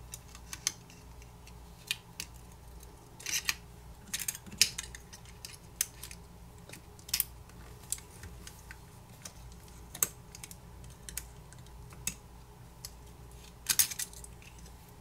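Irregular small clicks, taps and short scrapes of a metal pry tool working against a smartphone's circuit board and frame as the bottom board is pried up and lifted out, with a few brief scraping bursts standing out among the clicks.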